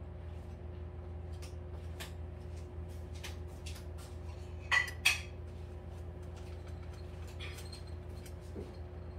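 A metal frying pan on an electric coil burner gives scattered faint ticks and two sharper clicks about five seconds in, over a steady low hum.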